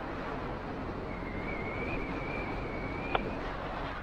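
Steady rush of wind and road noise from riding a Honda CB125R motorcycle. A faint, high, wavering whine runs through the middle, and a single sharp click comes about three seconds in.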